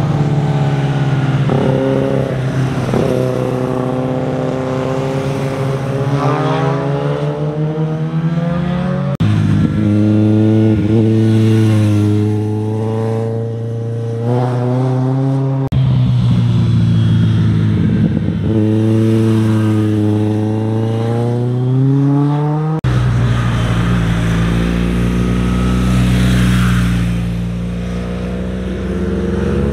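Motorcycle engines passing one after another through a hairpin bend, the engine notes rising and falling in pitch with the throttle. The sound cuts abruptly from one bike to the next three times.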